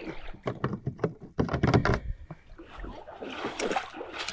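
Handling noise on a plastic fishing kayak: a quick run of knocks and clatter, then a softer scraping near the end, as gear is pulled from the deck.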